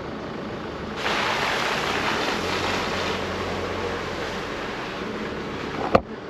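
Chevrolet Colorado ZR2 Bison pickup rolling along a sandy dirt road, heard from inside the cab. Steady tyre and wind rush sits over a low engine drone, and it grows louder about a second in. A short click comes near the end.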